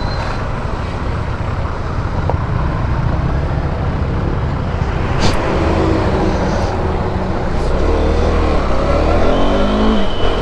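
Motorcycle riding at highway speed: engine running under rushing wind noise, its note rising in the last couple of seconds as it accelerates.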